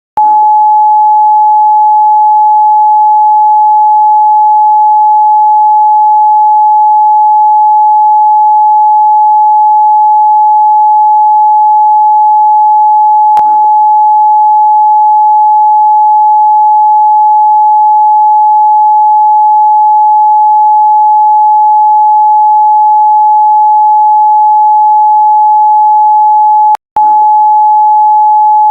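A loud, steady electronic beep at one pitch, held without a break, with a click about halfway through and a very brief cut-out near the end.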